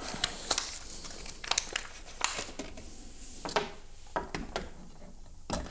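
Scattered small clicks and scrapes of a screwdriver and fingers working at the plastic battery cover of a toy RC transmitter.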